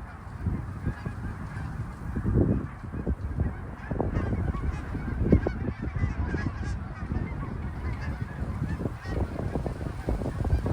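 A flock of geese honking in flight, many short calls overlapping.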